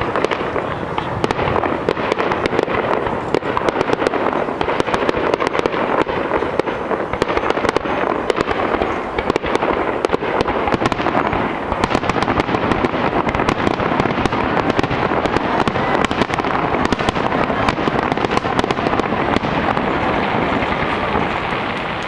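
Fireworks display: a continuous, dense barrage of overlapping bangs, pops and crackling from bursting aerial shells and ground effects.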